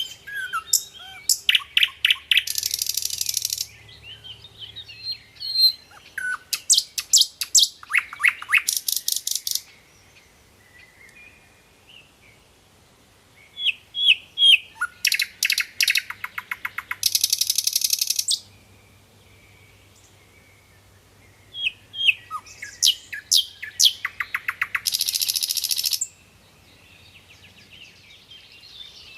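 A songbird singing in four bouts, each a run of sharp high chirps ending in a fast, buzzy trill, with pauses of a few seconds between bouts.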